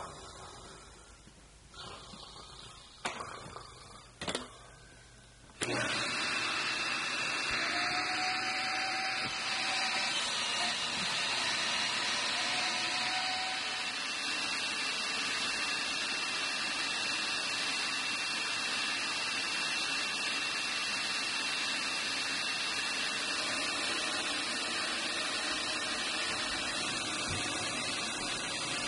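Upright bagless vacuum cleaner switched on about six seconds in, then running steadily with a faint high whine; a few knocks come before it starts.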